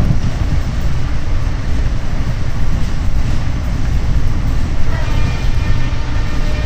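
Passenger train hauled by twin WDP4 diesel locomotives running along the line: a loud, low, steady rumble. A faint, high, steady tone joins about five seconds in.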